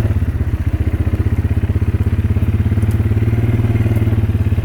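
Motorbike engine idling steadily with a fast, even beat and a low hum.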